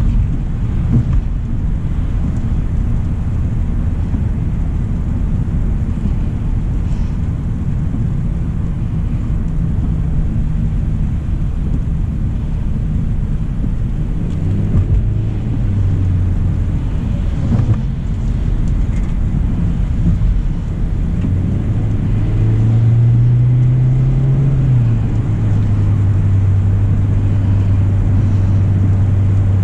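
2025 Hyundai Elantra SEL driving on a rainy road, a steady low road and engine rumble. About three-quarters of the way through, a low hum rises slightly in pitch for a couple of seconds, then drops back and holds.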